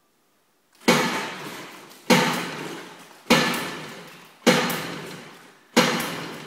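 Yamaha 20 hp short-shaft outboard motor being pull-started on its first start after new ignition coils: five pulls about a second apart, each a sudden loud burst that fades away over about a second.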